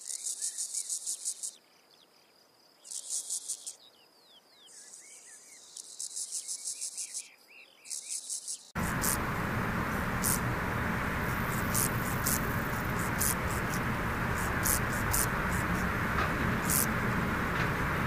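Grasshoppers stridulating: high, dry rasping phrases, each a quick train of pulses lasting a second or so, repeated with short gaps. About halfway through, a different recording takes over: a steady rushing hiss with scattered sharp clicks.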